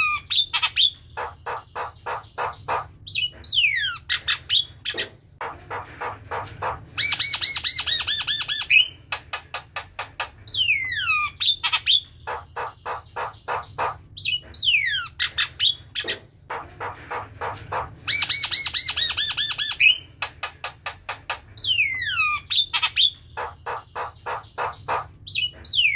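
Javan myna singing its chattering song: falling whistled glides, quick runs of sharp clicking notes and harsh rasping calls, the same sequence coming round again several times.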